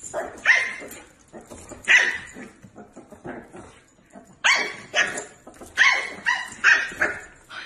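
A dog barking in short, sharp barks: a couple near the start, one at about two seconds, then a quicker run of five in the second half.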